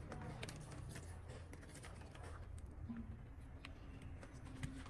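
Light clicks and taps of a smartphone being handled, over a faint low hum. Near the end comes a sharper click as a USB charging cable's plug is pushed into the phone's port.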